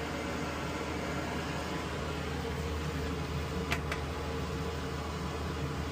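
Steady low hum of workshop room noise, like a fan or air handler running, with two light clicks close together about three and a half seconds in.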